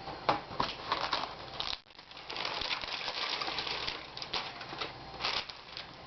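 Light clicks, taps and rustling from handling a laptop's LCD screen panel and its plastic parts as it is lifted out. The sound drops out briefly about two seconds in.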